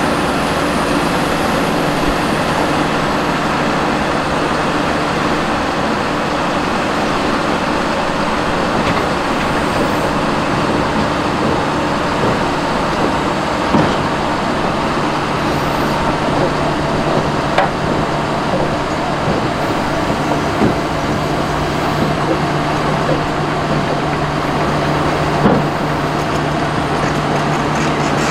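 Kobelco SK380SR excavator's diesel engine running steadily, with a few short sharp knocks about fourteen, eighteen, twenty-one and twenty-five seconds in.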